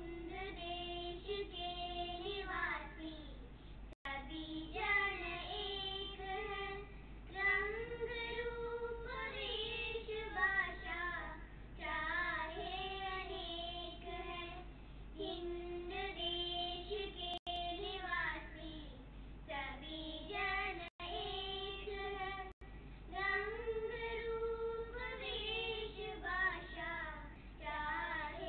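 Young girls singing a song, with held, gliding melodic notes; the sound cuts out for a split second a few times.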